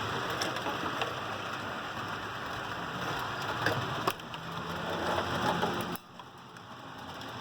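HO-scale model train running on the layout: a steady rolling rattle of wheels on the track with a faint motor hum, a few clicks over rail joints, and a sudden drop in level about six seconds in.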